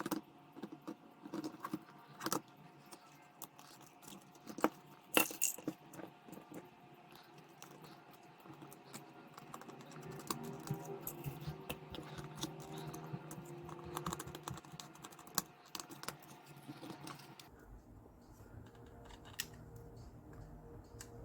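Irregular small clicks, taps and light clatter from hands handling and fitting the calculator's small plastic parts.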